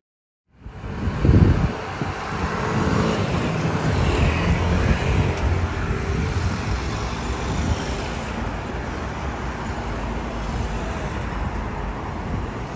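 Busy city road traffic: cars and buses running past in a steady wash of noise, with a louder low surge about a second in. It starts after a brief silence.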